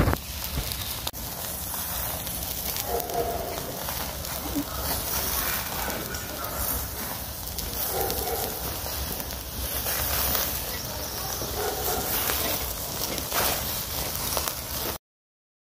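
Ground-meat kebabs on metal skewers sizzling and crackling over a charcoal grill, with faint voices behind. The sound cuts off suddenly near the end.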